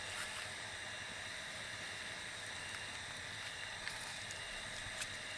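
Steady night-time insect chorus, a constant high buzzing drone, with a few faint clicks.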